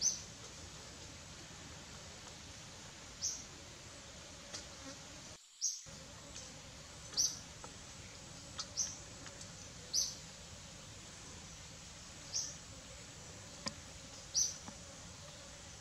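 Short, high chirps, each falling slightly in pitch, repeating about once every one to two seconds over a faint steady background hum, from a small creature calling in the surrounding greenery. The sound cuts out completely for a moment a little before halfway.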